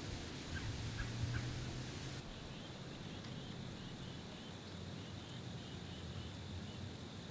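Faint bird calls: a few short notes about a second in, then a run of small repeated notes lasting several seconds, over light outdoor noise.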